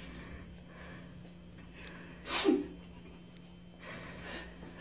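A person's emotional breathing: one sharp gasp or sob about halfway through, then softer breathy sniffs near the end, from someone overcome and close to tears.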